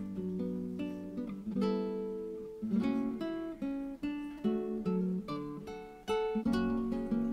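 Background instrumental music: an acoustic guitar picking out a melody of plucked notes over lower bass notes.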